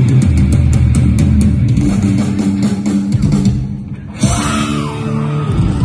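Rock band playing live: distorted electric guitars over a drum kit with fast, even cymbal hits. About three and a half seconds in the drumming stops, and a couple of seconds later held, sliding tones ring out.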